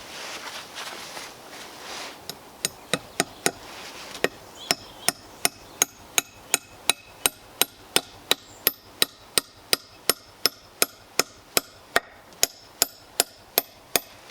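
Steady hammering with a heavy-bladed multi-tool: sharp, evenly spaced strikes, about three a second, starting about two seconds in after some softer scraping.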